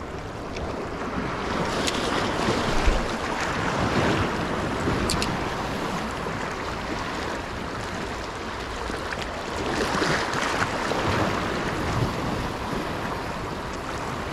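Small waves washing around rocks at the shoreline, surging twice and ebbing, with wind buffeting the microphone.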